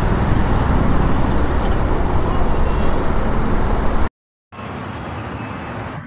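Loud, steady road-vehicle rumble and road noise, heaviest in the low end. It cuts off dead about four seconds in and comes back about half a second later, noticeably quieter.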